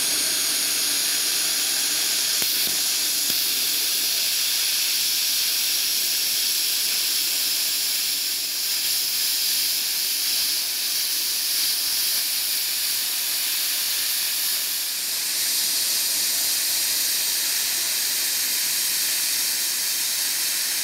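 ToolMania Cut 60 plasma cutter's torch cutting a 3 mm aluminium plate at 35 amps with about 5 bar of air: a loud, steady hiss.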